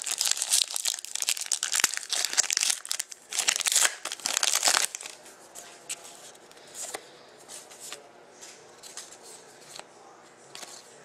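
Foil wrapper of a Panini Contenders hockey card pack crinkling and tearing as it is ripped open, for about five seconds. Then quieter soft clicks and rustles as the cards are slid apart and fanned out.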